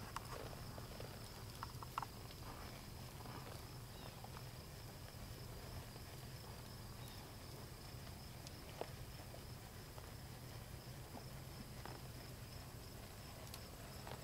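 Faint outdoor ambience: a steady high-pitched insect chirring over a low hum, with a few faint clicks, the sharpest about two seconds in.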